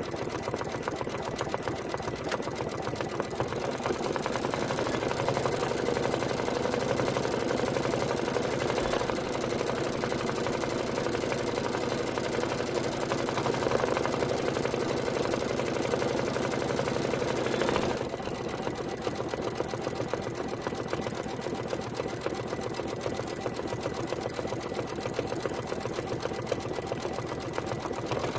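Computerized embroidery machine running steadily, its needle going up and down rapidly as it stitches out a satin-stitch border on an appliqué. Its level drops slightly about eighteen seconds in.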